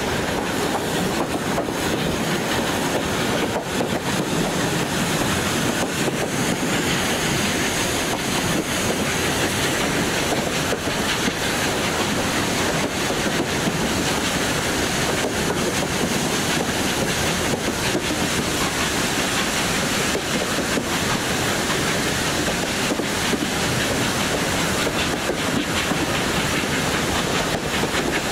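Train running along the track: a steady rumble of wheels on rail with faint irregular clicks.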